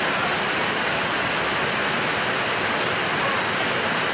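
A steady, even hiss with no distinct events, nearly as loud as the speech around it.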